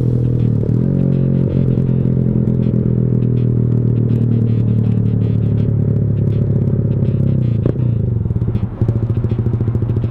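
Motorcycle with a Leo Vince GP Corsa Shorty exhaust idling steadily, with a short sharp crack about seven and a half seconds in and a more uneven, pulsing beat toward the end.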